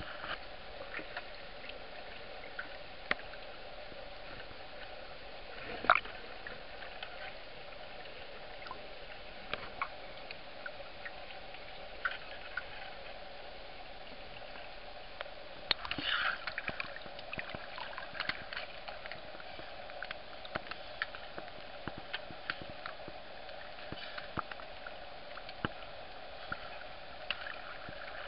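Seawater gurgling and sloshing around a camera that bobs at and just under the surface, with a steady hiss and scattered sharp clicks and pops. The loudest is a single knock about six seconds in, and a short burst of crackling comes a little past halfway.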